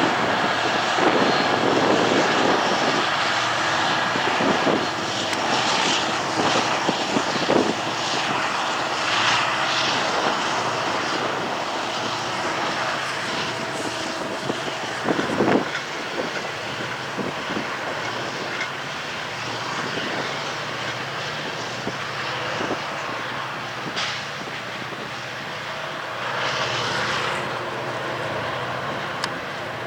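EMD SD70M diesel-electric locomotive, a two-stroke V16, working under load as it starts a freight train upgrade. Its engine drones steadily and slowly grows quieter, with a few short knocks along the way.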